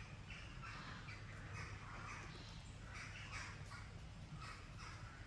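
A crow-family bird calling in a run of short, harsh caws, repeated many times in close succession.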